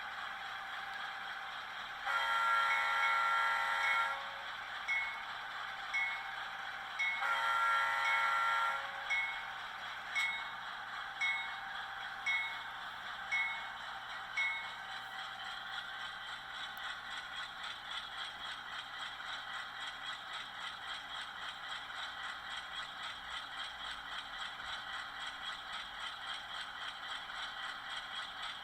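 Sound decoder in an HO scale GE Dash 8-40CW model locomotive, played through its small speaker: two horn blasts of about two seconds each, with the bell ringing about once a second for some ten seconds, over the running diesel engine sound, which carries on alone with a fast even pulse after the bell stops.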